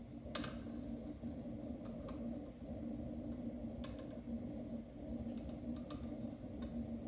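Steady low hum of reef aquarium pumps and equipment, with a few light clicks scattered through it, the sharpest about half a second in.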